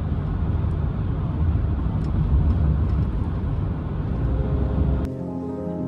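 Steady low rumble of a moving vehicle, as heard from inside it. It cuts off suddenly about five seconds in, and piano music begins.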